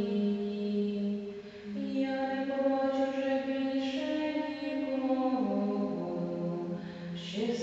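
Voices singing a slow liturgical chant or hymn in long held notes that step to a new pitch every second or two, with a brief break between phrases about a second and a half in.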